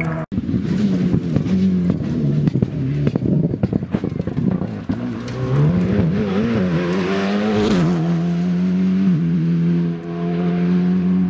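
Rally car engine, an Alpine A110, revving hard as it comes down a tarmac stage. The pitch rises and falls repeatedly through gear changes and lifts, then the engine holds steady high revs as the car passes and pulls away. The sound cuts out for an instant just after the start.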